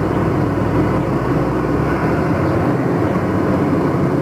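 Delivery truck's engine and road noise heard from inside the cab: a steady, loud drone. The deepest part of the rumble drops away about halfway through.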